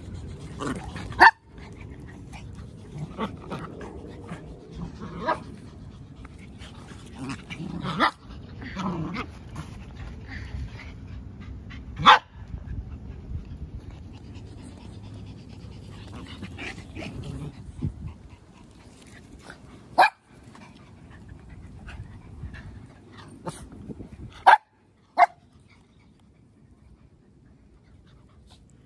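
Dogs at rough-and-tumble play: a handful of short, sharp barks scattered through, with lower growling and panting between them.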